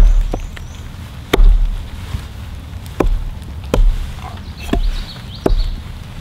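Hatchet chopping through a raccoon carcass onto a wooden log: about seven dull chops at uneven intervals, each landing with a low thud as the blade hits the wood.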